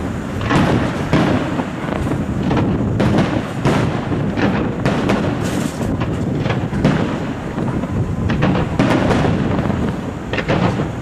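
Aerial firework shells bursting one after another in a professional display: a dense, unbroken run of bangs and booms, often several close together.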